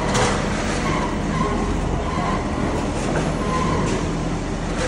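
Otokar Arma II armoured vehicle's Cummins 12-litre diesel engine running steadily as the vehicle creeps and turns slowly, with a short hiss near the start.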